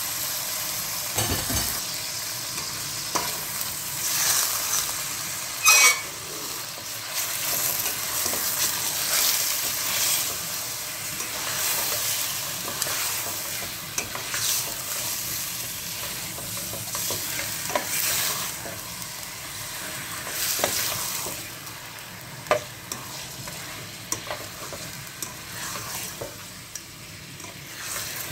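Raw chicken pieces sizzling in hot oil and fried onions in a steel pot, the first searing (bhuna) of the just-added chicken, while a plastic spatula stirs them and scrapes and knocks against the pot. One sharp knock comes about six seconds in, and the sizzle eases toward the end.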